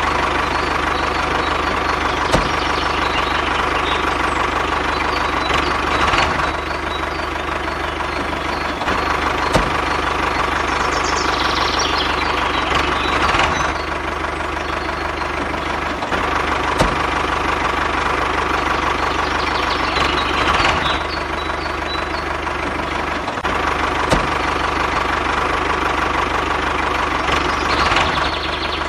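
Small motor of a homemade mini tractor model running steadily as the model drives along, a continuous drone with a few sharp clicks and a slight swell about every seven seconds.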